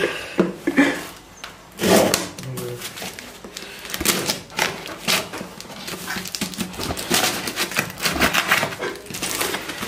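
Packing tape on a cardboard box being slit with a small knife and pulled open by hand: a run of sharp scrapes, rips and rustles, with a louder rip about two seconds in.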